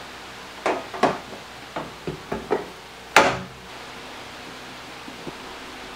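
A Jeep Wrangler's windshield cowl panel knocking and clicking as it is set back in place and fastened down: about six sharp knocks, the loudest about three seconds in. After that there is only a steady hiss.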